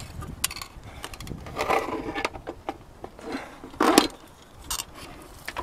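Scattered light clicks and scrapes of hands handling the light fixture's wires and hardware, with a louder short knock about four seconds in.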